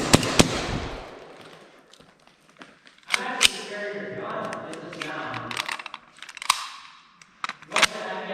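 Airsoft guns firing single sharp cracks at irregular intervals: two close together at the start, then single shots spread through the rest, with a muffled voice in the background between them.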